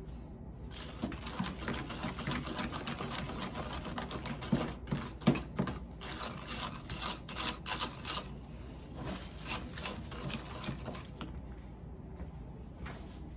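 Metal spoon stirring a runny wet concrete mix in a plastic party cup: rapid scraping and clicking against the cup's sides, with one louder knock about halfway through. The stirring stops shortly before the end.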